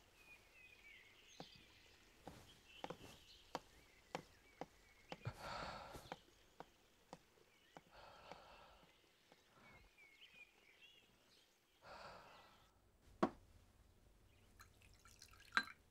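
Faint quiet background with scattered soft clicks and taps and a few faint, high chirps. Two sharper clicks come near the end.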